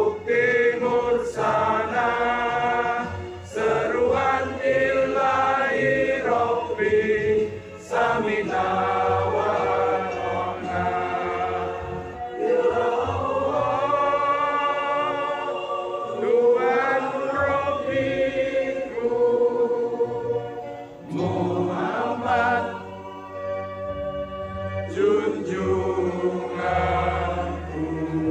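Many voices singing a song together in long held notes that step up and down in pitch, with short breaks between phrases.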